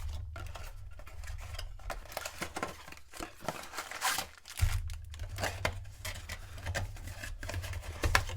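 Plastic shrink-wrap being torn off a football-card blaster box and foil card packs crinkling: irregular rustles, rips and small clicks.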